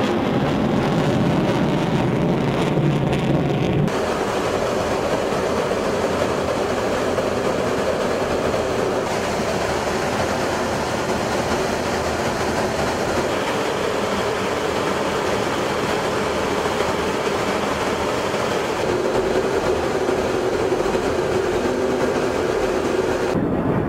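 Rockwell B-1B Lancer's four turbofan jet engines rumbling as the bomber flies past for the first few seconds. A sudden change about four seconds in gives way to a steady, even drone of engines and rushing air, heard from an aircraft flying in formation with the bombers.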